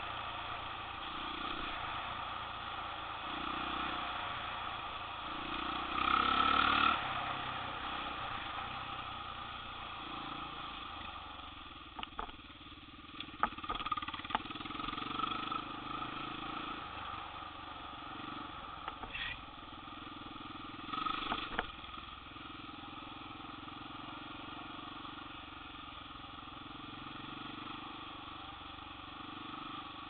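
Small off-road vehicle engine running steadily while riding along a gravel trail, swelling louder briefly about six seconds in. A few sharp knocks and rattles come through in the middle.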